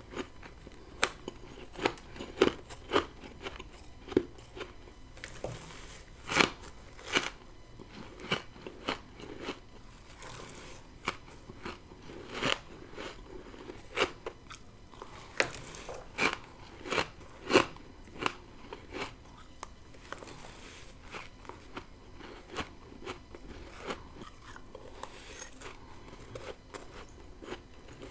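Close-miked biting and chewing of freezer frost grown with a humidifier: a string of sharp, irregular crunches, closely spaced in some stretches and sparser in others.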